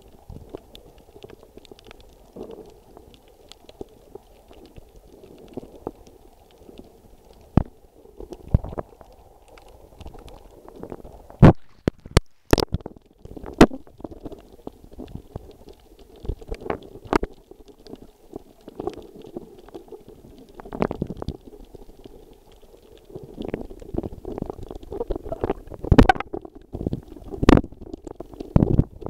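Muffled underwater noise picked up by a snorkeler's underwater camera: a dull, low rumble and sloshing of water moving around the camera, with scattered sharp clicks and knocks, several loud ones about a third of the way in and again near the end.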